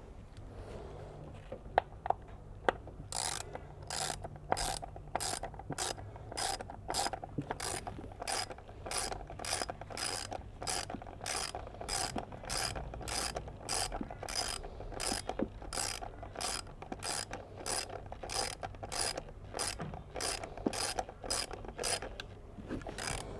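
Ratchet wrench clicking in steady back-and-forth strokes, about two a second, as it runs in the 10 mm bolt holding an ignition coil, with a few sharp clicks about two seconds in.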